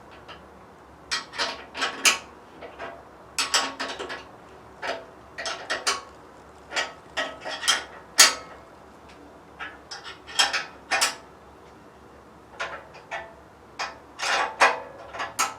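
Metal hand tools and hardware clinking and clanking in irregular clusters of sharp knocks, with short pauses between them.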